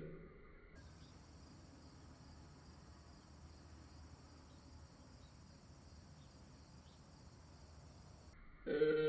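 A rooster's crow, played in slow motion so it sounds deep and drawn out, fades away at the start. A long faint stretch of steady high-pitched noise follows. Just before the end, another slowed crow begins loudly.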